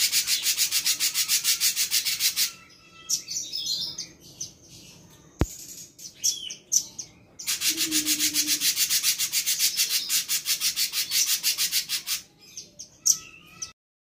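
Blue-winged leafbird (cucak cungkok) singing a parakeet-chatter imitation: two long runs of fast rasping chatter, about nine strokes a second, with a few short varied notes and a single sharp click between them.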